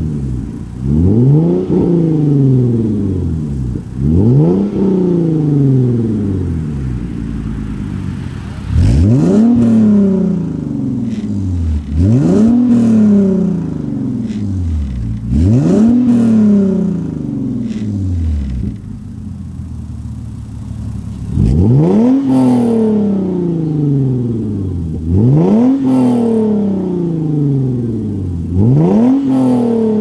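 Hyundai Genesis Coupe 3.8 V6 exhausts blipped in quick revs from idle, each rev rising fast and falling back, about one every three seconds. Two cars are heard in turn, with the sound changing about nine seconds in and again around twenty-one seconds in: one car with a CNT catback and test pipes (cat delete), the other with a Stillen catback and NGM headers.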